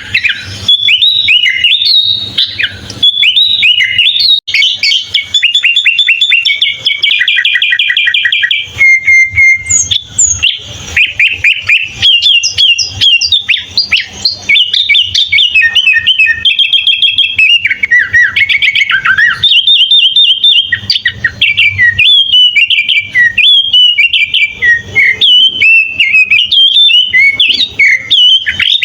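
Sooty-headed bulbul (kutilang) singing its full song without pause: a loud, rapid run of varied whistled phrases and fast chattering trills.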